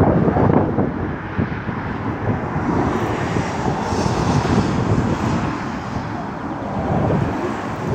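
Distant fighter jet flying overhead: a steady rushing engine roar that swells in the middle, with wind buffeting the microphone.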